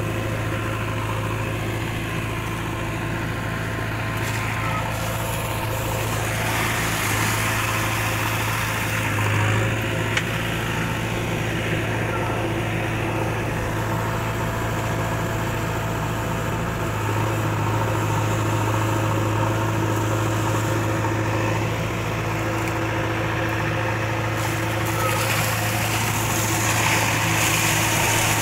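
JCB 3DX backhoe loader's diesel engine running steadily close by while the backhoe arm scoops water. Near the end, water splashes as a bucketload pours into the tanker's opening.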